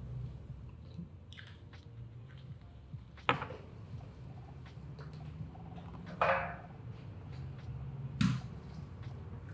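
Three sharp knocks a few seconds apart, with small clicks and rustles between them, over a low steady hum: a potted plant and a plastic watering can being handled and set down on a kitchen counter.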